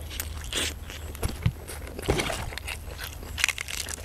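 A person biting into and chewing a grilled chicken thigh close to the microphone: irregular small clicks and crunches of the mouth at work.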